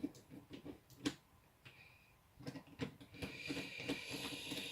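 Light clicks and rattles of the shaver's plastic casing parts and small screws being handled, then denser scraping and clicking near the end as a screwdriver works a screw.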